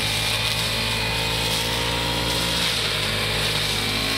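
Small motorcycle engine running steadily at low speed, its pitch dropping slightly about two and a half seconds in.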